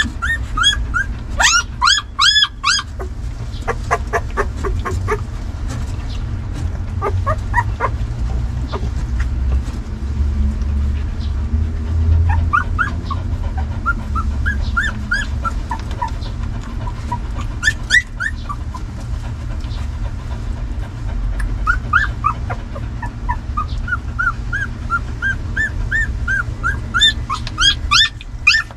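Newborn puppies squealing and whimpering as they nurse and jostle, in runs of short, high squeaks that come in clusters near the start, midway and again toward the end, over a steady low rumble.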